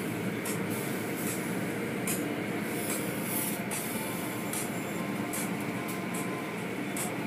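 Automatic car wash running: large rotating cloth brushes scrub a car amid a steady wash of machinery and water noise. Light swishes of the brush strips recur about every three-quarters of a second.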